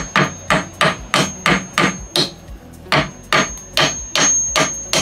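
Claw hammer driving a small nail into a strip of old wooden trim, tapping about three blows a second, with a short pause a little past two seconds in before the blows resume.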